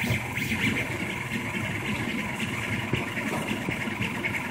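Rostock MAX delta 3D printer printing: its stepper motors whir and buzz in quick, constantly changing tones as the print head darts about over the bed.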